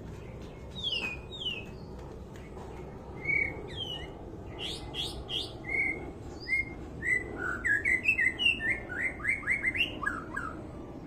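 White-rumped shama singing: clear whistled notes and falling slurs, quickening in the second half into a fast run of short notes.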